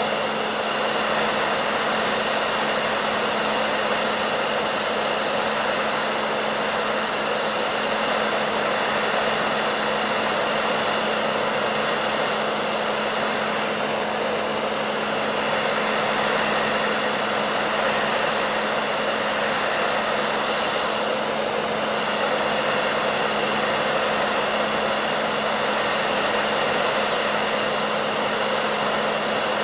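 Handheld hair dryer running continuously: a steady blowing hiss of air over a constant motor hum.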